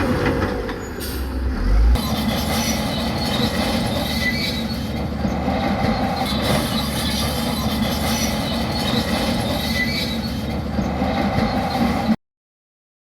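Heavy earthmoving machinery running, with a steady clatter and metallic squealing. It cuts off suddenly near the end.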